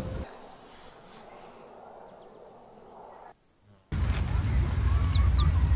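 Faint, even chirping of crickets, about three chirps a second. About four seconds in, a louder low rumble starts and small birds chirp with quick downward-sliding calls.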